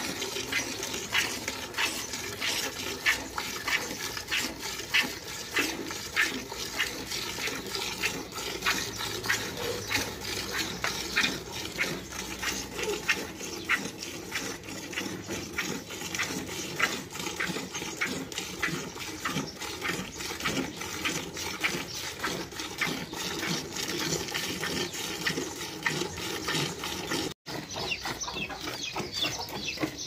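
Milk squirting from a cow's teats into a partly filled galvanized metal bucket during hand milking: hissing jets in a regular rhythm as the hands squeeze in turn.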